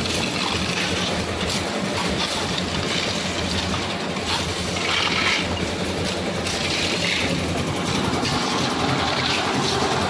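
Concrete mixer machine's engine running steadily, with the scrape and rattle of stone chips being scooped into metal pans several times.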